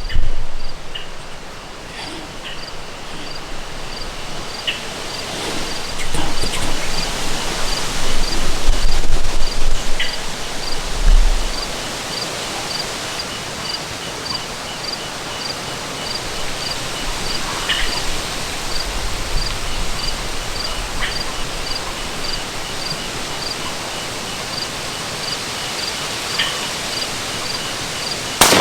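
Wind noise in open country with insects chirping steadily, a high pulse a few times a second over fainter chirps, and gusts rumbling on the microphone in the middle. A single gunshot cracks right at the end.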